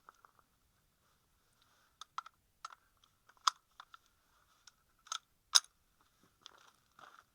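Sharp metallic clicks and clacks of a Savage Model 64 semi-automatic .22 rifle being handled as a 20-round magazine is swapped in and the action is worked. There are about eight clicks in all, two of them much louder than the rest.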